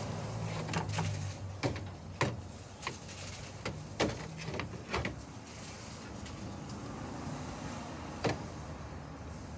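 Clicks and knocks of car cooling-fan parts being handled, scattered and irregular and mostly in the first half, with one more near the end. A low steady hum fades out in the first second and a half.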